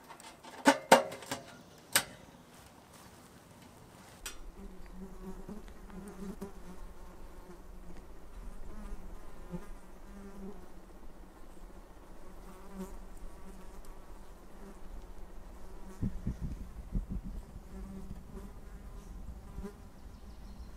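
Sheet-metal door of a homemade oven-pan wood stove clanking shut and latching with a few sharp clicks in the first two seconds. Then a flying insect buzzes with a wavering pitch, with a few low thumps near the end.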